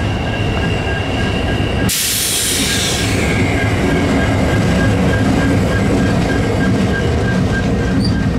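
Freight train rolling by: steel wheels on rail with a steady high-pitched wheel squeal over the rumble of the cars. About two seconds in, a sudden hiss starts and fades away over a second or so.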